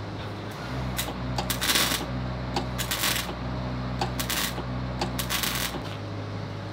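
Arc welding on the steel oxygen rack: four short crackling tack welds, each lasting under half a second. A welding machine hums steadily under load and stops near the end.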